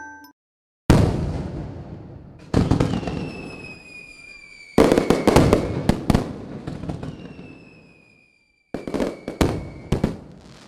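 Sudden loud bursts, the first about a second in, each followed by dense crackling that dies away. Faint whistles fall slowly in pitch between the bursts, and after a short break one more burst comes near the end.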